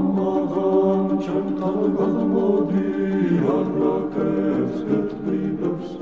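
Georgian a cappella choir singing held chords in several voice parts, without instruments.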